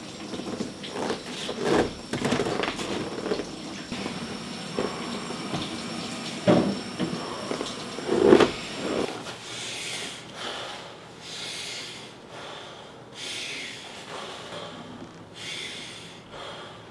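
A man breathing hard and rhythmically, deep noisy breaths of about a second each through the second half: Wim Hof breathing in the cold. Thumps and rustles come first.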